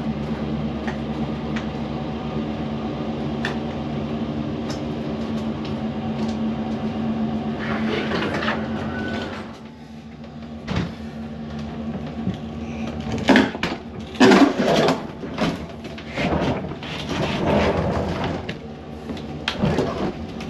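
A pickup truck's engine idling steadily for about the first nine seconds, then a run of irregular knocks, bumps and rattles as an empty chest freezer is handled, its lid opened and the cabinet set down on a plywood floor.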